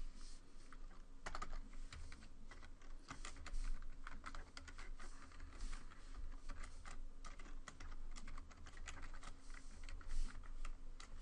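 Typing on a computer keyboard: a quick, uneven run of key clicks as a line of code is entered.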